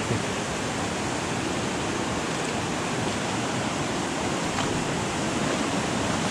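Shallow mountain river rushing steadily: a constant, even hiss of flowing water.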